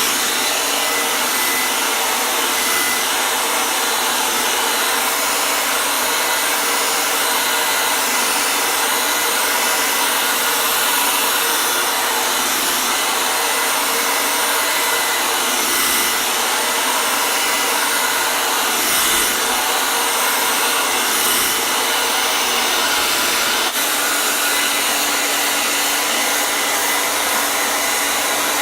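Hair dryer running steadily: a continuous rush of blown air with a motor hum underneath, its hum shifting slightly about 24 seconds in.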